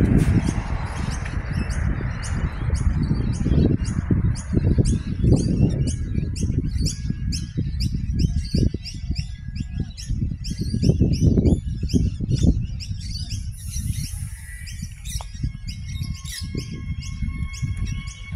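Birds chirping rapidly and repeatedly over a loud, gusty rumble of wind on the microphone. A steady hum of a few pitches comes in near the end.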